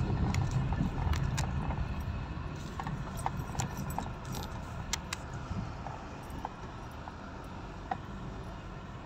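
Car driving over a rough dirt road, heard from inside the cabin: a low road rumble, heavier in the first couple of seconds and easing after, with scattered light rattles and clicks.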